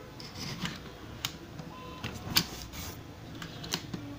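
Handling noise: a string of sharp clicks and knocks as the camera and laptop are moved about, the loudest about two and a half seconds in.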